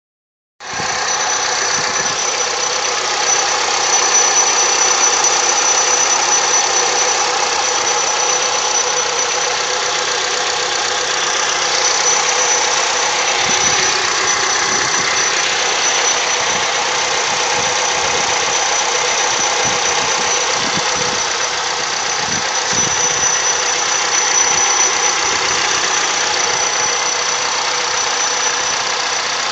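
Honda CR-V engine idling steadily, with a constant high-pitched whistle from the engine area over the running noise.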